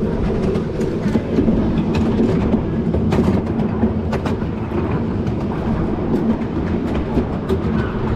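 Miniature railway carriage rolling along the narrow-gauge track: a steady rumble from the wheels and running gear, with frequent sharp clicks as the wheels pass over rail joints.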